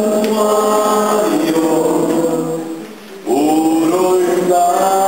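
Background music of singing voices holding long notes; one phrase fades out and a new one begins about three seconds in.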